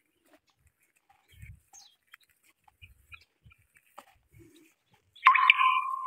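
Scattered faint bird chirps, then a loud, short animal call about five seconds in, held on one pitch for under a second.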